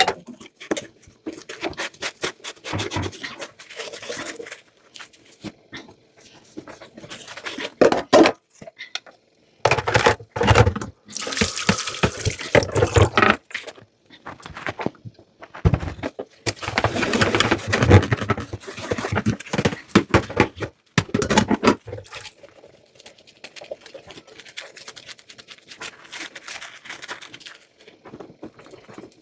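Dishes being washed by hand at a sink: scrubbing and clinking throughout, with running tap water in two loud stretches, about a third of the way in and again past the middle.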